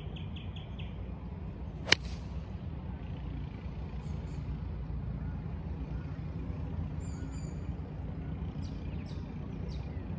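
A single sharp click about two seconds in: a TaylorMade UDI 2-iron striking a golf ball off the tee. A steady low rumble runs underneath, with a few faint high chirps in the second half.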